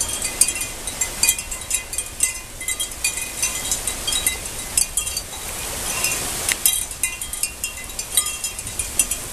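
Heavy thunderstorm rain falling steadily, with frequent short, high, ringing clinks over the hiss.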